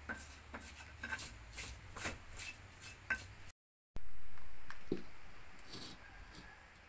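A pestle knocking and grinding in a mortar, a sharp knock roughly every half second. It breaks off suddenly about halfway through. A smoother noise follows and fades away over a couple of seconds.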